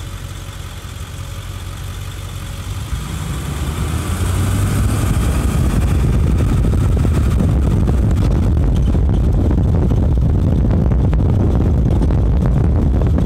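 Pickup truck driving, a steady engine rumble with road noise. It grows louder about four seconds in and stays loud, with many small knocks and rattles.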